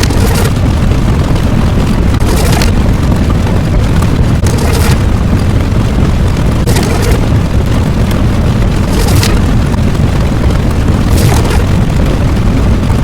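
Loud, continuous deep rumble like an explosion or eruption sound effect, with a short hissing swell about every two seconds.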